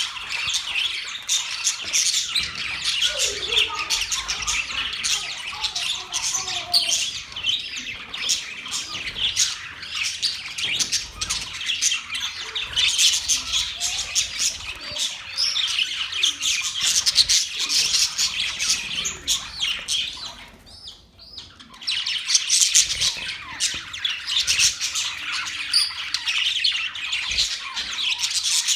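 Budgerigars chattering and warbling: a dense, unbroken stream of high chirps and squawks, with a short pause about three-quarters of the way through.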